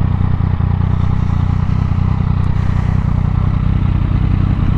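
Yamaha MT-09's three-cylinder engine running at a steady speed, mixed with loud wind rushing over the helmet-mounted camera.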